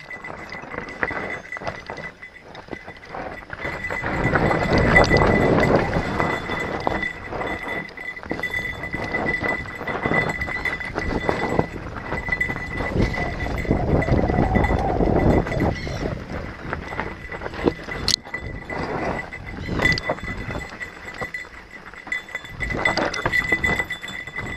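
Mountain bike rolling fast down a dirt singletrack, heard from a helmet camera: tyres crunching over dirt and loose stones, with the bike rattling and knocking over bumps. It gets louder and rougher about four seconds in and again around the middle, and a faint steady high whine runs underneath.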